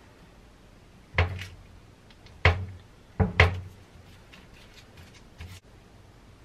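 A metal fork pressing crimps into the edge of puff pastry on baking paper over a stainless-steel sink draining board: four knocks in about two seconds, the last two close together, then a few faint light clicks.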